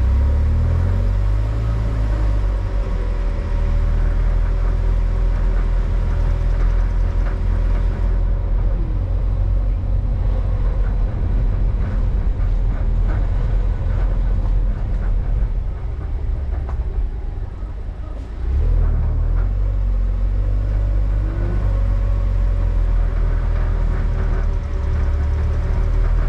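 A vehicle's engine and road noise during a drive: a steady low rumble with a held engine note. The rumble eases for about two seconds near the two-thirds mark, then picks up again abruptly.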